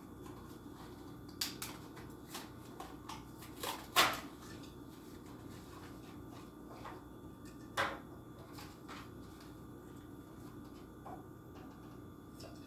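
Hands handling a die-cast toy car's cardboard-and-plastic blister package: scattered clicks and crinkles, with the loudest sharp crack about four seconds in and another about eight seconds in.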